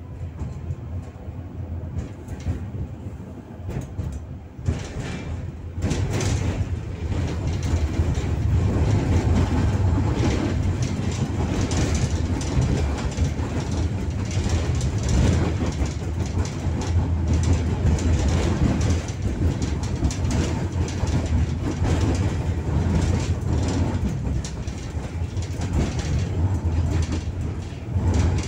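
Ust-Katav 71-623-04 tram running along its tracks, heard from on board: a steady rumble of wheels on rail with scattered clicks. It grows clearly louder about six seconds in and then keeps going steadily.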